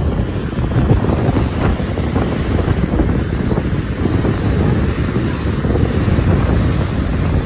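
Strong wind buffeting the phone's microphone in an uneven rumble, over the steady rush of a large waterfall.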